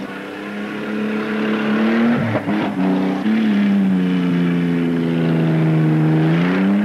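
White 3000 truck engine running hard under load. Its pitch holds, sags over a couple of seconds, then climbs again near the end. A short burst of noise cuts in about two seconds in.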